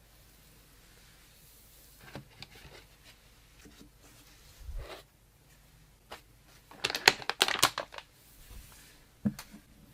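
Hands handling parts and packaging: scattered light clicks and knocks, with a loud burst of rapid crinkling and rustling about seven seconds in.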